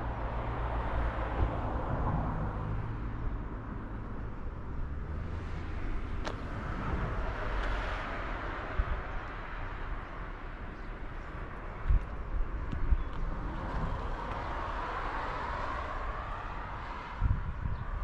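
Outdoor ambience: a steady low rumble with two slow swells of hiss, and a few footsteps on the path near the end.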